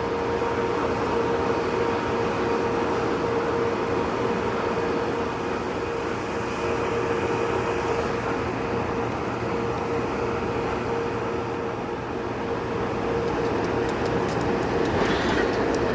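Train rolling by: a steady rumble with a constant hum running through it. Near the end, a run of wheel clicks on the rail joints begins.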